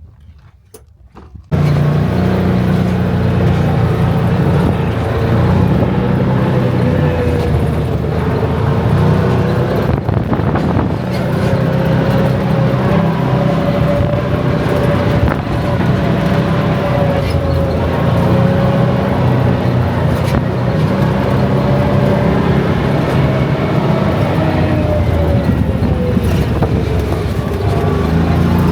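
Motor vehicle running on the move, a loud steady drone with an engine tone that slowly rises and falls as the revs change. It starts suddenly about a second and a half in.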